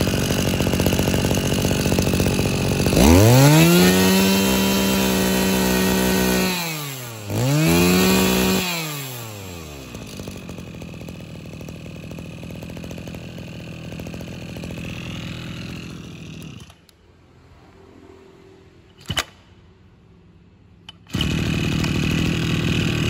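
Mitsubishi TL26 brushcutter's 26 cc two-stroke engine running on test. It idles, is revved up hard twice to a high whine and drops back each time, then idles more quietly and stops about 17 s in. A sharp click follows, and a loud steady running noise starts again near the end.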